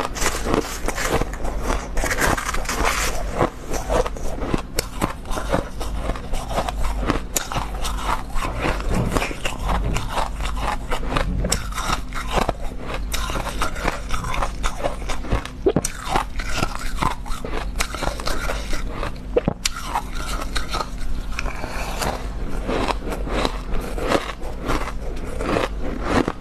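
Close-miked crunching and biting of mouthfuls of freezer-frost ice, mixed with a metal spoon scraping and scooping shaved ice in a metal bowl. The crisp crackling crunches run on densely and without pause.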